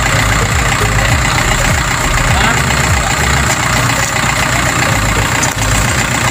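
Farm tractor engine idling steadily, with a pulsing low rumble.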